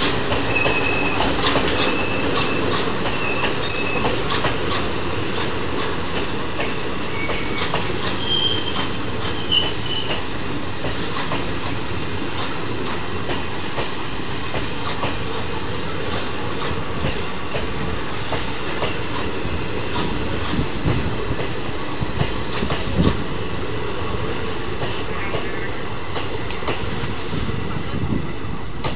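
Indian Railways express passenger train running on the rails, its wheels clattering over rail joints. For the first ten seconds or so, high-pitched wheel squeals come and go.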